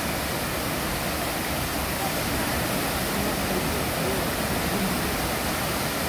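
The Düden waterfall's falling water making a steady rushing noise, with faint voices of people in the background.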